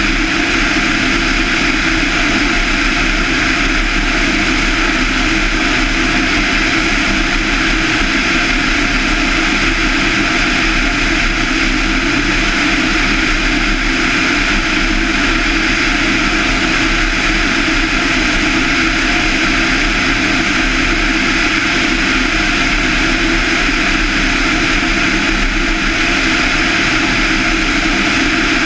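Van's RV-7's 200 hp Lycoming IO-360 four-cylinder engine and propeller running steadily in cruise flight, a loud, unchanging drone.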